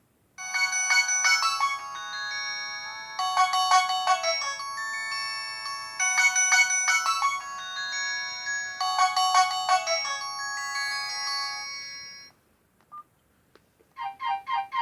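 A Nokia 108 mobile phone playing one of its built-in ringtones: a bright electronic melody in phrases of about three seconds that repeat, stopping about twelve seconds in. A short beep follows, and near the end the next ringtone starts with quick repeated notes, about four a second.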